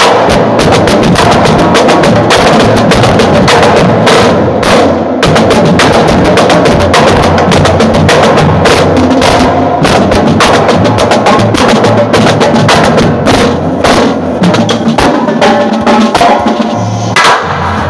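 High school marching band drumline playing loud, fast drum strokes on snare, tenor and bass drums, dropping in level near the end.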